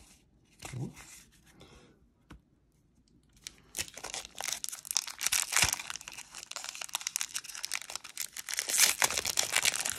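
Foil wrapper of a sealed 1993 Donruss baseball card pack being crinkled and torn open by hand. The dense crackle starts about four seconds in and grows louder toward the end.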